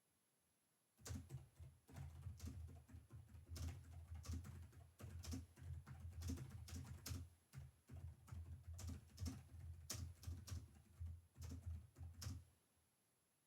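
Typing on a computer keyboard: a quick, irregular run of key clicks, each with a dull thud beneath it. It starts about a second in and stops shortly before the end.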